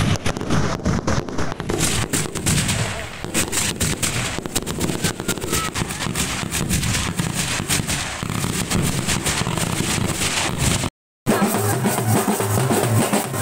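A string of firecrackers going off in rapid, irregular cracks over festival music. The sound cuts out for a moment near the end, and drumming follows.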